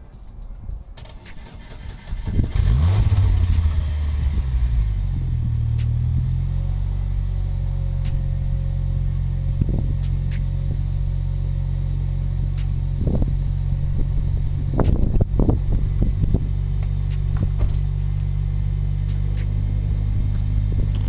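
Saturn Ion's 2.2-litre four-cylinder engine cold-started, heard at its exhaust pipe, which has a silencer fitted. It fires about two seconds in, flares up in revs, then falls within a few seconds to a steady idle. A few sharp knocks come later.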